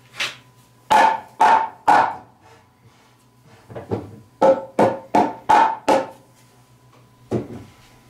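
Mallet knocking a tight-fitting wooden piece onto the end of a timber post. There are sharp, ringing wooden knocks: a few single strikes, then a quicker run of about seven, then one more near the end.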